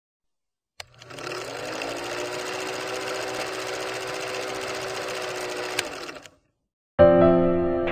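Film projector sound effect: after a click about a second in, a steady mechanical whirring clatter comes up to speed and runs until it stops a little after six seconds. Music starts near the end.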